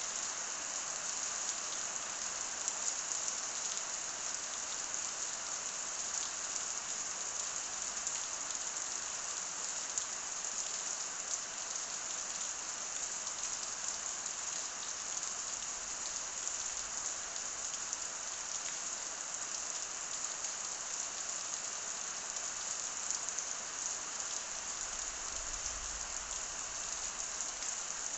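Steady rain falling and pattering on a surface, a soft even hiss.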